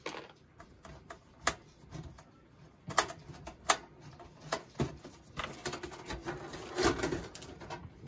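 A computer power supply being worked loose and pulled out of a steel PC case by hand: scattered metallic clicks and knocks with cable rustling, the sharpest two clicks about three seconds in.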